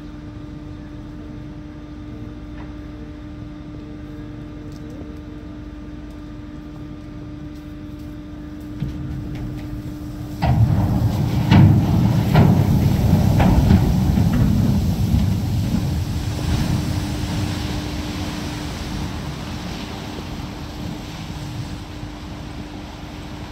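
A 295-foot steel hopper barge side-launched down wooden launch ways: a steady low hum, then about ten seconds in a sudden loud rumble with several bangs as the hull slides off the ways and hits the river, fading slowly into a long wash of water.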